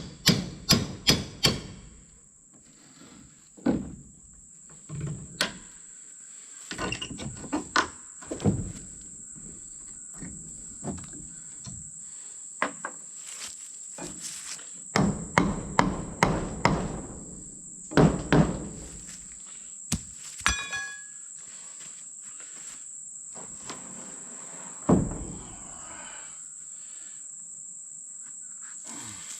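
Hammer blows on wooden porch boards as a board is knocked loose, in scattered runs of several quick strikes with single hits between, over a steady high insect chirring.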